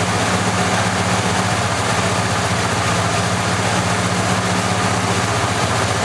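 The 500 cubic-inch Cadillac V8 of a 1972 Eldorado idling steadily.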